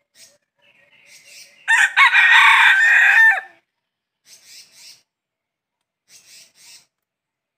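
Red junglefowl rooster crowing once, a single crow of under two seconds that starts about two seconds in and cuts off sharply.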